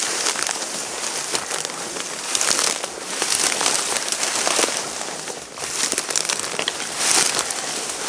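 Dry reed stalks rustling and crackling as a person pushes through a dense reed bed, in uneven surges of swishing.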